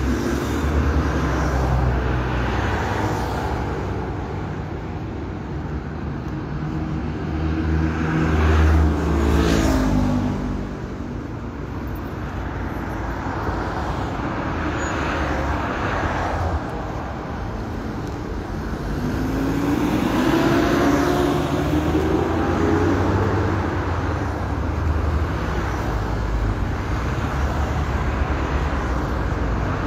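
Street traffic with a steady low rumble. A vehicle passes about nine seconds in, its pitch falling as it goes by, and another engine rises in pitch around twenty seconds in.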